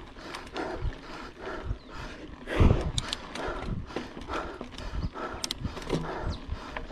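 A cyclist breathing hard in quick, rhythmic breaths while pedalling uphill on a mountain bike, worn out by the effort. Trail noise from the bike runs under it, with a heavier thump about two and a half seconds in.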